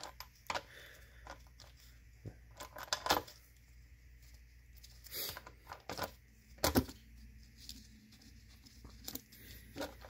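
Plastic upper timing-chain cover on an Audi 2.0 TFSI engine being worked loose from its mounting by hand: scattered clicks and knocks, the loudest about three seconds in and again just before seven seconds.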